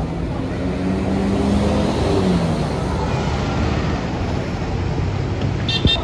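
A large tour bus drives past with engine and road noise. A steady engine tone falls in pitch about two seconds in as it goes by, and there is a brief sharp click near the end.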